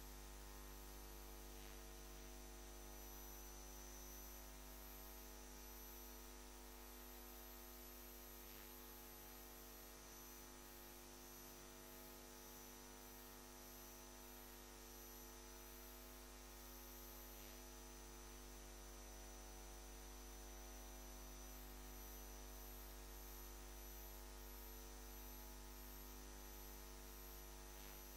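Near silence: a steady electrical mains hum in the audio feed, with no other sound.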